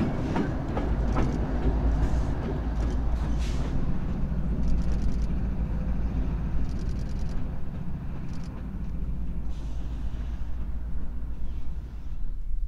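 Freight train cars rolling past, with wheels clicking over rail joints during the first few seconds, then a steady low rumble that drops away near the end.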